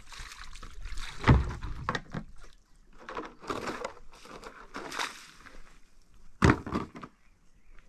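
Irregular knocking and scraping noises with two heavier thuds, one about a second in and a louder one near the end.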